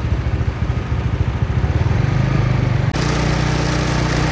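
Honda scooter's small engine running while riding in city traffic, its pitch rising about two seconds in as it speeds up. About three seconds in, loud wind and road noise covers the engine.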